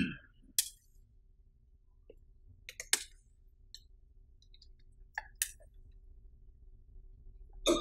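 Quiet room tone broken by a few short, sharp clicks and knocks, about four in all, the loudest about three seconds in.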